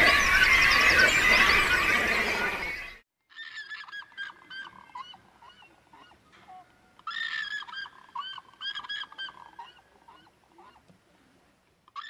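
A loud, dense chorus of bird calls that cuts off abruptly about three seconds in, followed by pied cormorants calling in bursts of short repeated notes, loudest in a run of calls a little past the middle.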